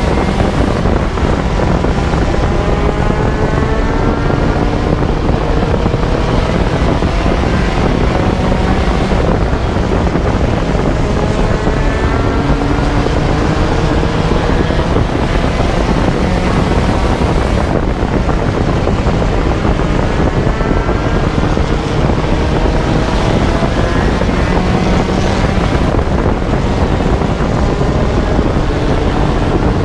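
A four-cylinder race car's engine at racing speed, heard from on board over heavy wind and road noise. Its pitch climbs as it accelerates and drops back between climbs, several times over, as it works around the short oval.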